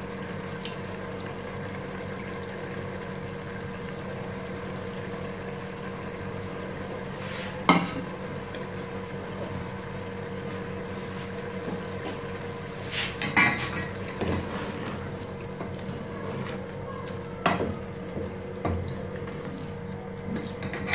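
Kitchen sounds at a gas stove: a steady hum under occasional sharp knocks and clatter of utensils against an aluminium pot, the loudest knock about a third of the way in. Near the end a wooden spatula stirs taro and brinjal masala in the pot.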